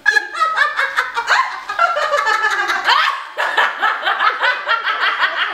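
Several women laughing together in quick, high-pitched giggles that grow fuller and denser a little over three seconds in.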